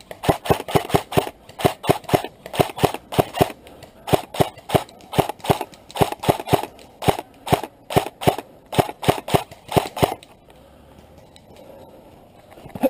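Airsoft rifle firing a rapid string of single shots, about four a second, in three strings with short pauses, stopping about ten seconds in.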